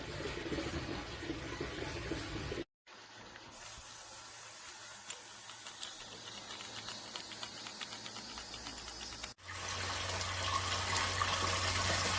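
Water running and gushing through an aquarium water changer's hose and gravel vacuum, a steady rush like a tap filling a sink. It cuts out abruptly about three seconds in, comes back quieter, then returns louder with a low hum about nine seconds in.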